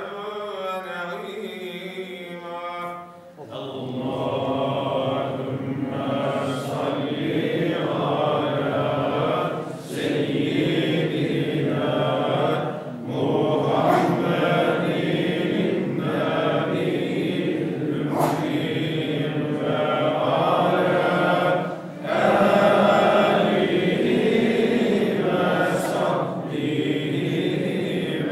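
Islamic devotional chanting by men's voices. A single voice holds a wavering, gliding line, then about three seconds in a group of men joins in a steady chant of repeated phrases with brief pauses.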